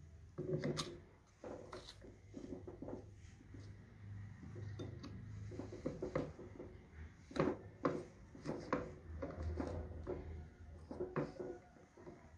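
Small hard plastic and metal parts of an electrical contactor being handled and fitted by hand: irregular clicks, taps and clinks, over a faint low hum that comes and goes.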